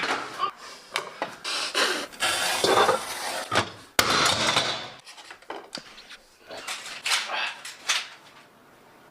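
Plastic action figures being handled: irregular clicks, knocks and clatter of hard plastic pieces.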